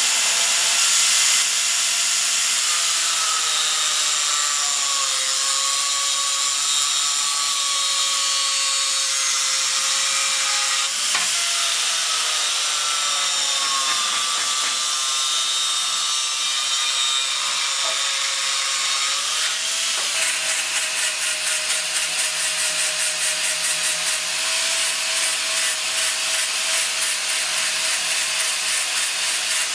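An electric power tool working wood, its motor whine sagging and recovering slightly with the load. In the last third the sound pulses about twice a second, as with back-and-forth strokes.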